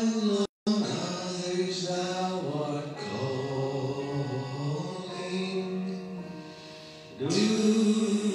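A slow sung hymn, a voice holding long notes in a chant-like melody. The sound cuts out for an instant about half a second in.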